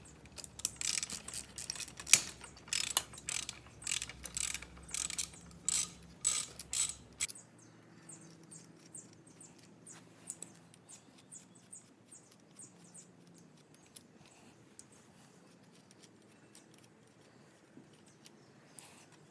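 Ratchet socket wrench clicking in repeated strokes as a bolt is turned on the motorized bike. The clicking is loud for about the first seven seconds, then fainter and sparser.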